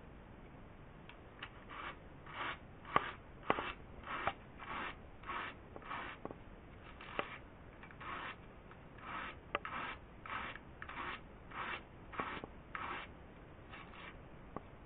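Wool being carded between a pair of wire-toothed wooden hand cards: short rasping strokes, about one and a half a second, with a few brief pauses and a few sharp clicks among them.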